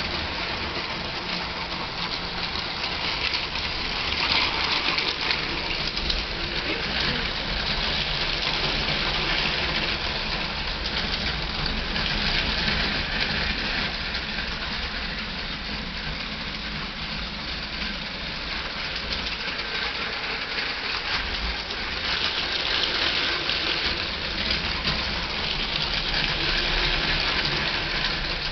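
Two Lego toy trains running around their track: the steady running noise of their small electric motors and wheels on plastic rails, swelling and easing a little as they pass.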